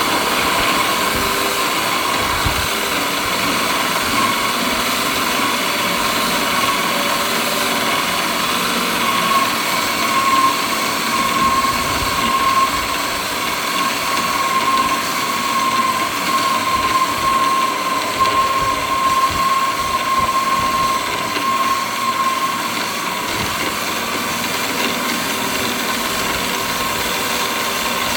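Portable line milling machine running, a steady mechanical machining noise with a constant high whine.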